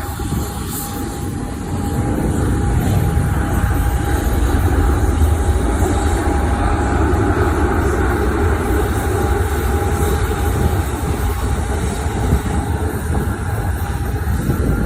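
Lion Air airliner landing: a loud, steady rumble of engines and rushing air that grows louder about two seconds in and then holds, with a thin steady whine running through it.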